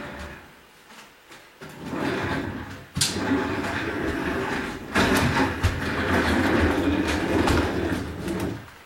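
A heavy box being slid and dragged across the floor, a long scraping and rustling in two stretches with a sharp knock about three seconds in.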